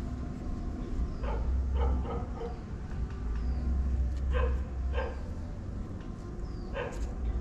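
Short, high-pitched animal calls: a quick run of four or five about a second in, two more around four and five seconds, and one near the end, over a steady low rumble.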